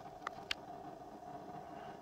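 Two light, sharp clicks about a quarter of a second apart, over a faint steady hum, heard as a television soundtrack played through the set's speaker.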